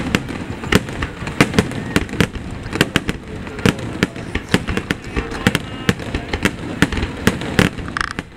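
Aerial firework shells bursting in a rapid, continuous barrage: several sharp bangs a second with crackle between them.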